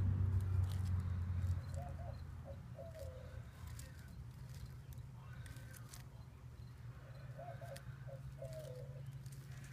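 A dove cooing twice, the phrases about six seconds apart, each a few short low notes and then a longer drawn-out one. A low rumble is heard during the first second and a half.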